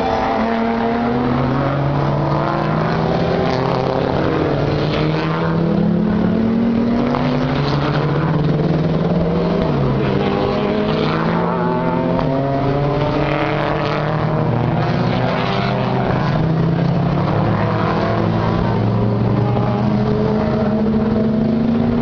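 A pack of race cars (GT and touring cars) accelerating out of a slow corner one after another. Their engines overlap in a continuous chorus of rising revs.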